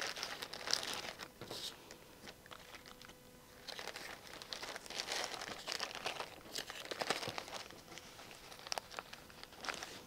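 Plastic bag and paper towel crinkling and rustling in irregular spurts as they are handled on a tabletop.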